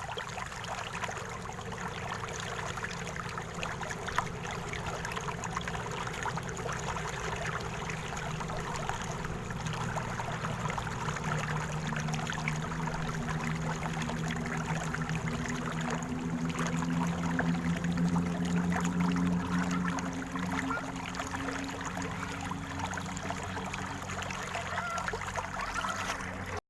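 River water flowing and trickling steadily over a shallow bed. A low hum comes in about ten seconds in, grows, and fades out around twenty seconds in.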